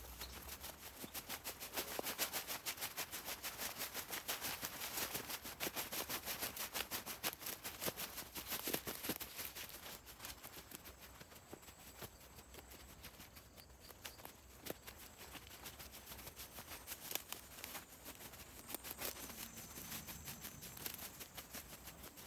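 Dense crackling and rustling made of many small rapid clicks, louder for the first several seconds and then quieter.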